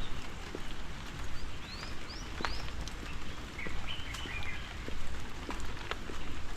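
Steady rain pattering, with footsteps in an even walking rhythm about once a second. A bird calls: three quick chirps about two seconds in, then another short call in the middle.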